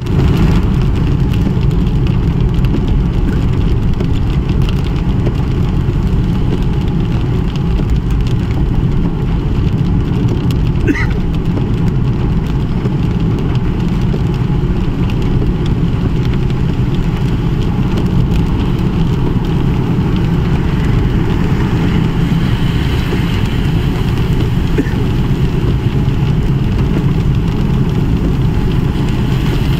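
Steady low rumble of a car driving on a wet road, heard from inside the cabin: engine and tyre noise with no break.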